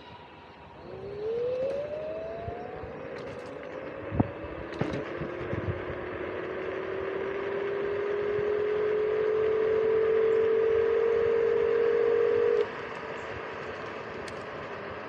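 Apollo City electric kick scooter's hub motor whining under throttle: the whine rises quickly in pitch about a second in as the scooter speeds up, then climbs slowly and grows louder until it cuts off suddenly near the end, leaving a steady rush of wind and tyre noise. A couple of sharp knocks come a few seconds in.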